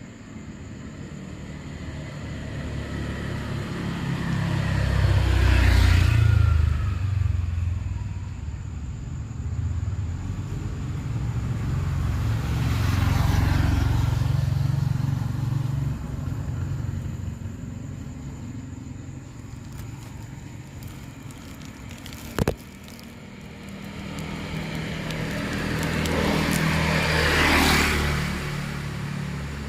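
Three vehicles passing one after another, each swelling to a peak and fading away, the first with a falling pitch as it goes by. A single sharp click about three-quarters of the way through.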